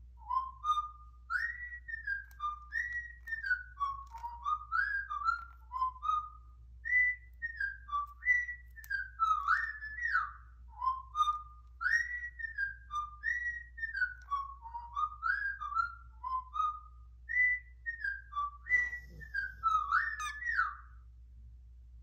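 Cockatiel whistling a tune it is learning: a run of short whistled notes sliding up and down, sung through twice as two similar phrases, with a brief knock near the end.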